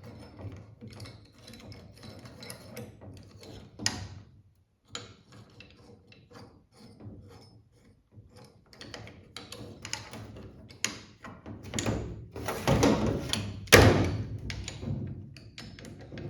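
Metal clicks, clinks and knocks of hand tools and small parts being handled while assembling a Wilwood brake pedal assembly and its balance bar. The clicks come irregularly, thicken into a louder run of knocks near the end, with one sharp knock standing out.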